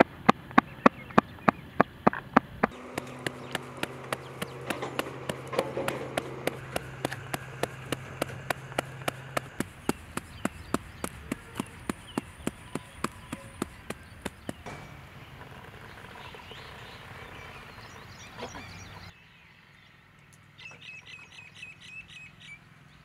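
Hands slapping jowar bhakri dough flat on a steel plate, about three pats a second. The patting stops about two-thirds of the way through, and birds chirp near the end.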